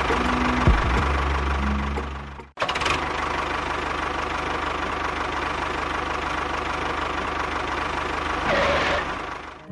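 An engine running steadily; the sound breaks off sharply about two and a half seconds in and picks up again at once.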